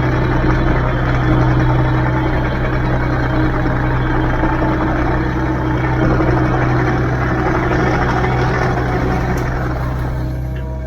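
Diesel engine of a Kubota KX057-4 mini excavator running steadily.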